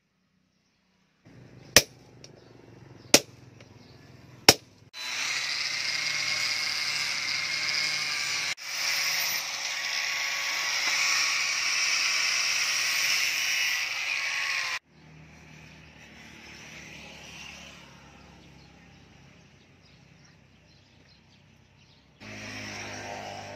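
Three sharp metal impacts about a second and a half apart, then an angle grinder's disc grinding steel, loud and steady for about ten seconds, giving way to a quieter steady noise.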